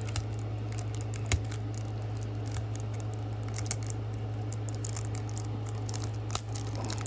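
Trading cards and their packaging being handled: light, scattered clicks and ticks, with a sharper click about a second in and another near the end, over a steady low hum.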